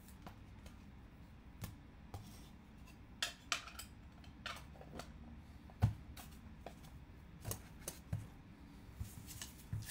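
Hard plastic card holders and clear acrylic display stands clicking and tapping as they are handled and set down on the table: a series of small clicks, the loudest about six seconds in.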